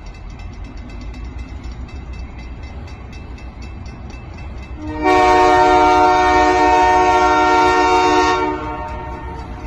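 Locomotive rumbling low, then about five seconds in a Canadian sandcast Holden K3L three-chime air horn sounds one long blast of about three and a half seconds, a steady chord of several notes, before the rumble carries on alone.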